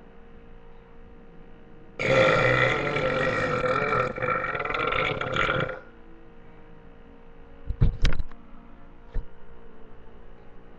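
A person's long, loud burp, lasting nearly four seconds. Two sharp knocks follow about two seconds after it ends, and one more a second later.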